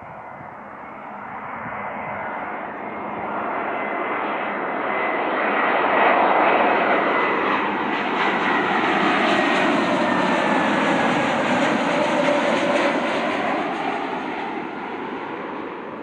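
Airbus A321neo airliner on final approach with landing gear and flaps down, its two Pratt & Whitney PW1100G geared turbofan engines growing louder as it passes close by, then fading. A thin whine in the engine noise slowly drops in pitch around the loudest point.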